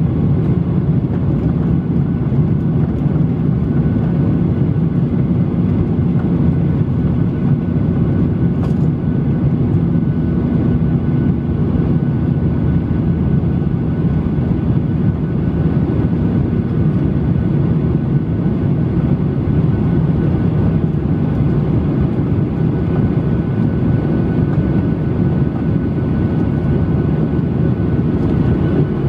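Boeing 737-800 cabin noise heard from a seat over the wing: the CFM56-7B turbofans and the airflow make a steady low drone with a faint high whine over it, the engines at climb thrust.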